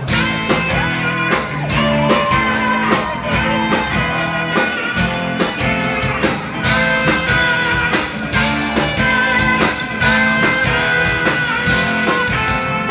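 Live rock band playing an instrumental passage: a sustained electric guitar lead line over bass and a steady drum beat.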